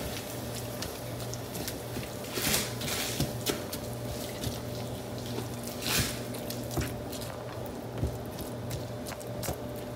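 Wet chopped spinach bubbling and sizzling in a nonstick frying pan as its water cooks off, stirred with a spatula that clicks and scrapes against the pan now and then. A low steady hum runs underneath.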